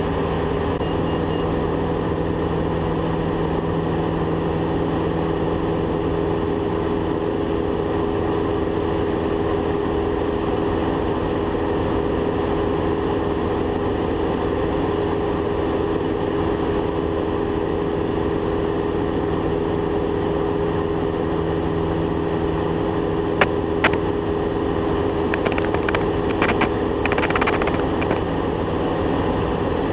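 Diamond DA40 single-engine aircraft's engine and propeller droning steadily at a constant pitch, heard inside the cockpit. A few brief clicks sound near the end.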